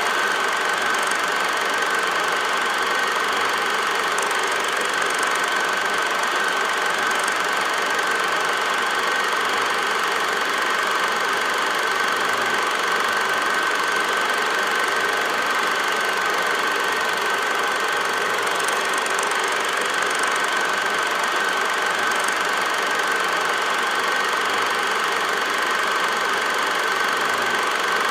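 8mm film projector running: a steady mechanical whir with a constant high whine, unchanging throughout.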